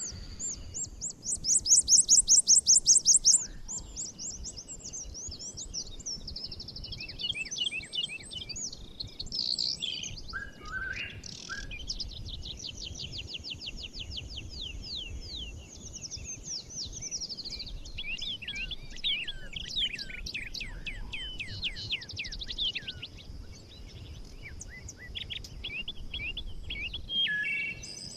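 Several songbirds singing and chirping in a daytime forest. A loud, fast trill of rapid repeated notes comes about a second in, followed by many quick overlapping chirps and twittering phrases, with a faint steady high tone underneath.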